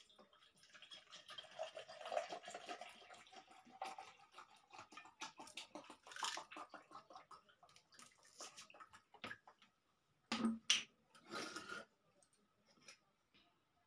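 Liquid poured from a plastic bottle into a steel tumbler, the pitch rising as the tumbler fills, followed by soft clicks and eating noises from hands mixing rice on a metal plate. Two short louder noises come about ten and eleven and a half seconds in.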